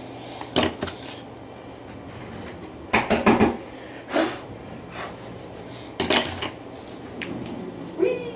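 Hard objects being handled and set down on a tabletop: a series of separate knocks and clatters, spaced a second or more apart, with the busiest clatter a few seconds in.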